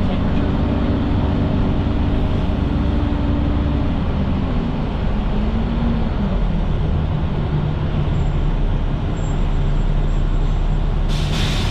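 Transit bus engine running, its low note shifting in pitch about halfway through, with a short hiss near the end.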